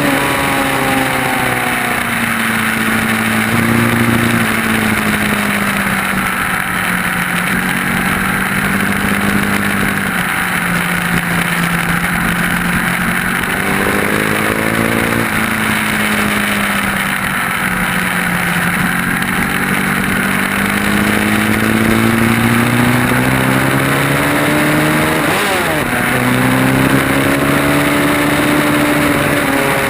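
Sport motorcycle engine heard onboard while lapping a race track, its pitch climbing under acceleration and dropping into corners with quick gear changes, over a steady rush of wind.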